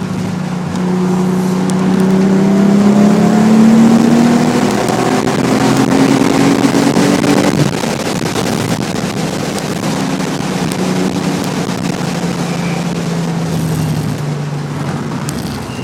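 Nissan 300ZX V6 through a Specialty Z aftermarket exhaust, driven hard on track: the revs climb over the first few seconds, climb again, fall sharply about eight seconds in, then hold fairly steady and slowly ease off.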